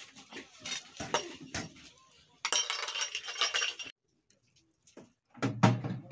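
Metal cooking utensils and pots clinking and knocking, with a noisy hissing stretch in the middle and a few loud dull knocks near the end.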